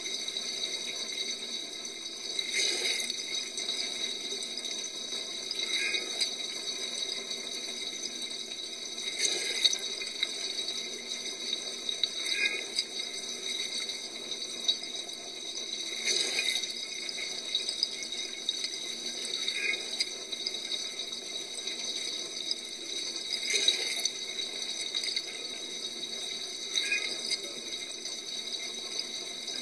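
Water spraying and splashing inside a running dishwasher during its wash cycle, with a steady high whine and a louder splash about every three and a half seconds.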